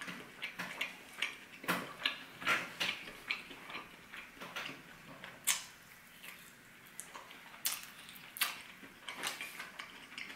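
Close-miked chewing of a pub-style chicken wing: irregular wet mouth clicks and smacks, several a second, with a sharper click about five and a half seconds in.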